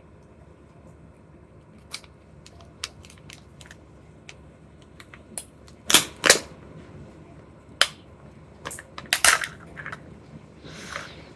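Plastic candy and toy packaging being handled and opened: a run of irregular sharp clicks and crackling snaps, loudest in a pair about six seconds in and again around nine seconds, then a brief rustle near the end.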